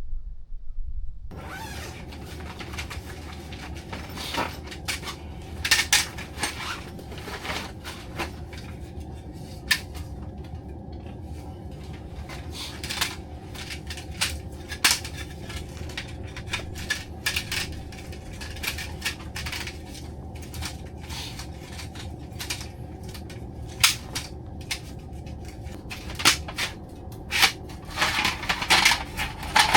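Dishes and utensils clinking and tapping now and then over a steady low hum, starting about a second in and growing busier near the end.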